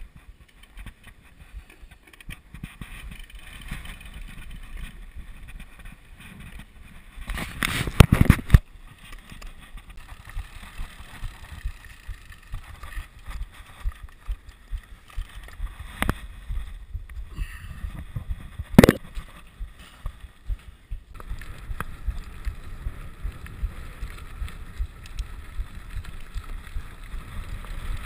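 Riding noise of a rigid 29er mountain bike: a steady low rumble of tyres on a gravel road with the bike rattling over bumps and some wind on the microphone. A loud burst of clatter comes about a third of the way through, and a single sharp knock about two-thirds of the way through.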